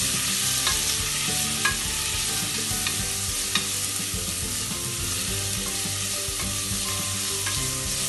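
Sliced onions sizzling in hot oil in an aluminium pressure cooker as they are sautéed, a steady frying hiss. A wooden spatula stirring them scrapes and taps against the pot now and then.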